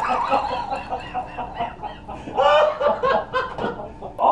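A man laughing in short, choppy bursts, loudest about halfway through.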